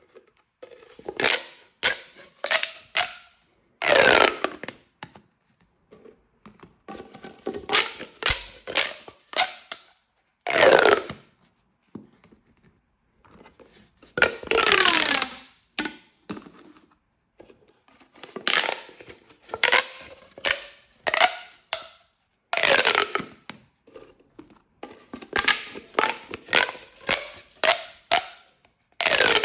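Plastic pop tubes being stretched and squashed: clusters of sharp pops and crackles from the snapping ribs, in bursts with short pauses, several of them sliding down in pitch.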